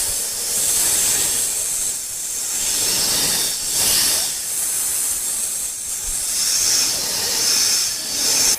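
Snake hissing: a loud, continuous airy hiss that swells and eases every second or two without stopping.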